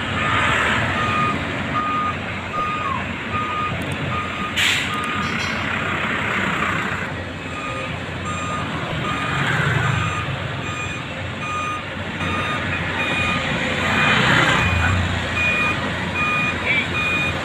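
A vehicle's reversing alarm beeping steadily, with a higher-pitched beeping series in the last few seconds, over street traffic with vehicles passing and one sharp knock about five seconds in.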